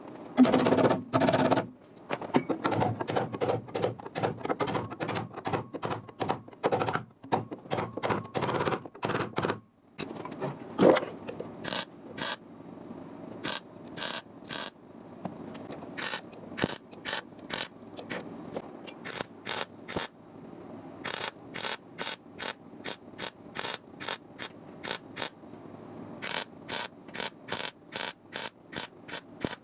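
Welder laying short stitch-weld bursts on thin car-body sheet steel, each burst a fraction of a second long. They come closely and unevenly at first, then settle into an even rhythm of about two a second.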